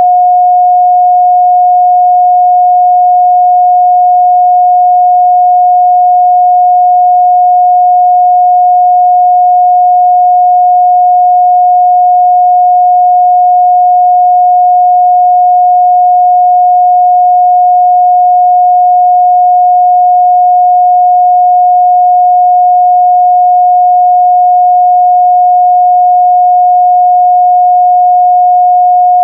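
A pure 721 Hz sine-wave test tone held steady and loud at one pitch, with no change in level.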